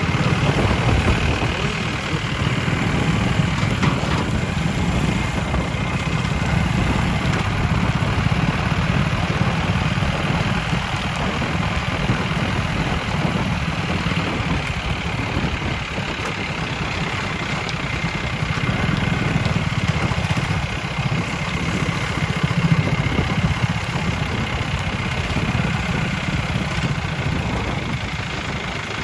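A motor vehicle's engine running steadily on the move, with road noise, its level rising and falling a little.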